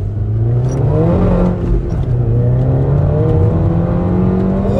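Turbocharged 2.0-litre four-cylinder of a 2008 Seat Leon Cupra, fitted with a bigger turbo, pulling hard under full acceleration. The revs climb for about a second, dip at a gearshift, then climb steadily again.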